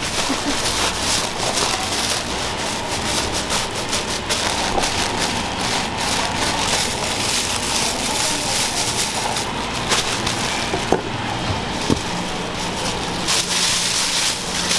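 Plastic bag crinkling and rustling as gloved hands knead and squeeze minced dumpling filling out of it into a steel bowl and pull the plastic away, over a steady background hum.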